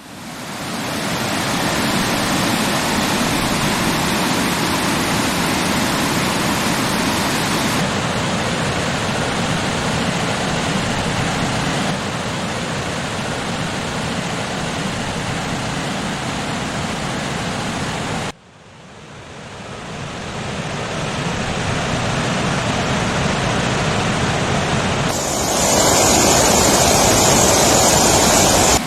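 Waterfall water rushing steadily. The sound fades in, shifts abruptly a few times, drops out and fades back in about two-thirds of the way through, and turns louder and brighter near the end.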